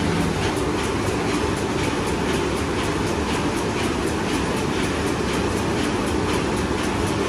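Twisted handle paper bag making machine running at production speed: a steady mechanical din with a regular clatter.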